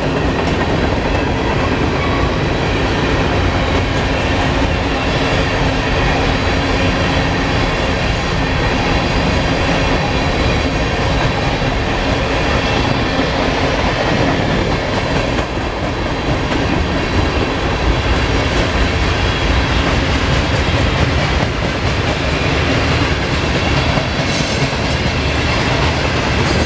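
Norfolk Southern mixed freight train's covered hopper cars rolling past: a steady, loud rumble and clatter of steel wheels on the rails.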